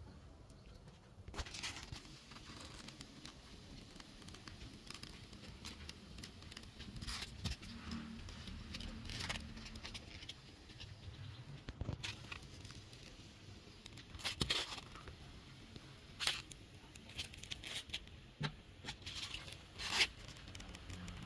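Polystyrene foam being pressed, rubbed and broken into a small dish: scattered short crackling and tearing sounds at irregular intervals, with a few louder ones in the second half.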